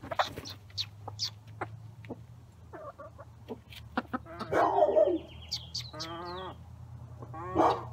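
Backyard hens clucking while they peck at bread held out by hand, with many sharp little pecking taps. A loud squawk comes about halfway through, then a wavering call, and another loud call near the end.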